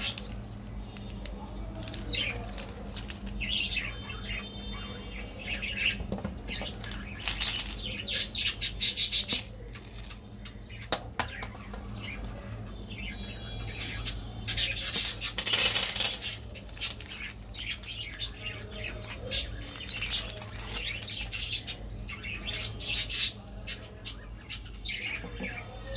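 Crinkling and rustling of foil candy wrappers handled and torn open by hand, in irregular spells with two loud bursts of crinkling, one about a third of the way through and one just past the middle, over a steady low hum.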